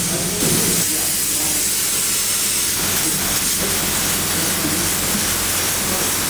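Spray foam gun spraying half-pound open-cell Icynene insulation foam, a steady hiss that gets a little louder about half a second in, over a faint low hum.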